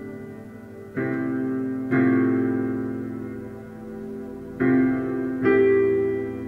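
Slow piano music: chords struck about a second in and again a second later, then twice more near the end, each ringing on and fading away.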